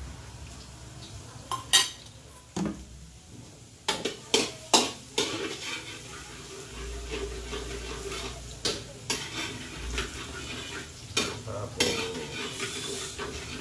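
Minced garlic sizzling in hot oil in a metal wok while a metal ladle stirs it, clanking and scraping against the pan again and again.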